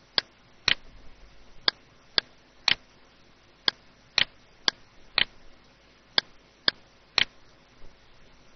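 Computer mouse button clicking: about a dozen single sharp clicks, many half a second apart, as lines are picked one by one to be trimmed in a CAD program.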